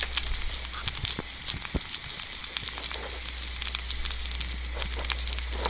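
Pork grilling for yakiniku, sizzling: a steady hiss with frequent small pops and crackles of spitting fat.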